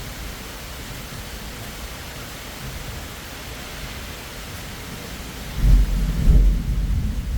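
Steady rain with a loud, deep roll of thunder that breaks in about two-thirds of the way through and rumbles on to the end.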